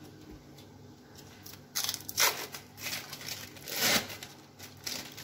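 Crinkling and rustling of wrapping being handled by hand, in a run of uneven bursts through the second half.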